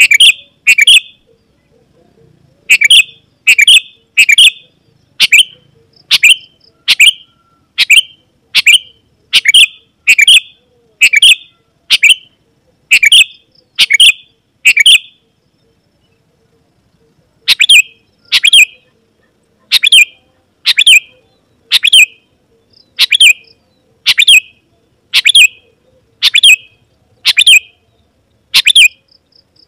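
Sooty-headed bulbul calling vigorously: short, sharp, loud notes repeated about once a second, sometimes in quick pairs, with a pause of a couple of seconds midway.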